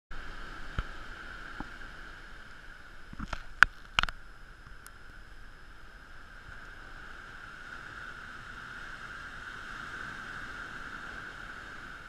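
Steady hiss of surf breaking on the beach below. A few knocks and clicks in the first four seconds, the loudest two close together near four seconds in, come from the camera being handled as it turns.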